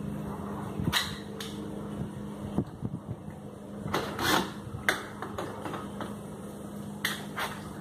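Clicks and knocks of a screw and metal U-nut being worked into a plastic wheel arch moulding, with a steady low hum that stops about a third of the way in.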